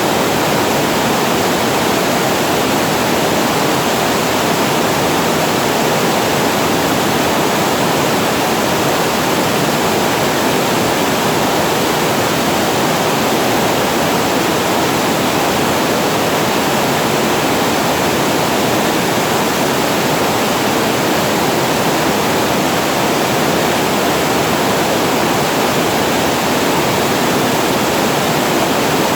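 Water spilling over a reservoir weir into a waterfall: a loud, steady, unbroken rush with no change throughout.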